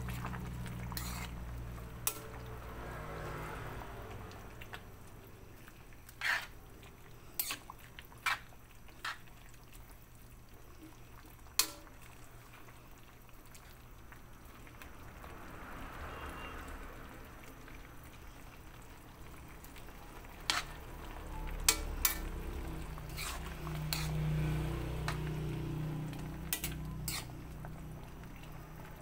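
Metal spoon stirring Malabar spinach leaves in a pan, with occasional sharp clinks of the spoon against the pan's side over a low steady hum.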